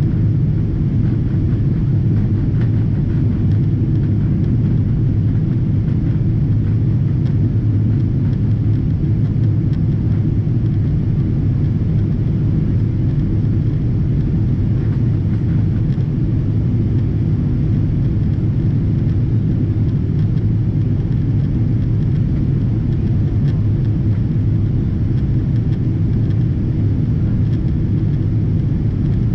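Steady low rumble of a Boeing 777-200ER heard from inside the passenger cabin: engine and airflow noise that holds even throughout, without any change in pitch or level.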